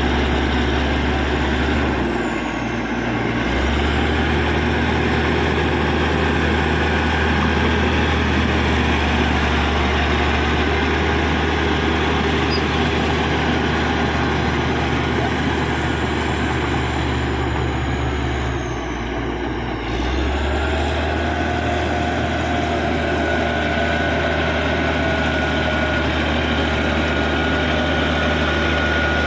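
Caterpillar D6G bulldozer's diesel engine running steadily with a deep hum as the machine works. Its note drops briefly twice, about two seconds in and again near twenty seconds, along with a faint falling whine, then picks back up.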